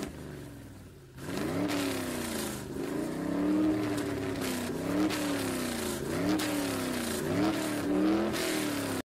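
Engine revving, its pitch dipping sharply and climbing back about once a second, over and over; it starts about a second in after a quieter opening.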